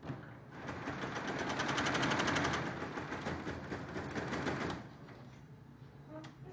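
Computerized embroidery machine stitching at speed, a fast, even rattle of needle strokes that is loudest in the middle and drops off about five seconds in.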